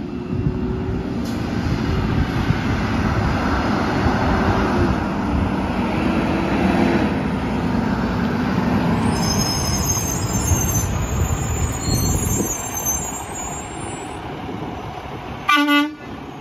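Diesel Peterbilt 567 garbage truck's engine running as it drives up and pulls alongside, then one short horn toot about a second before the end.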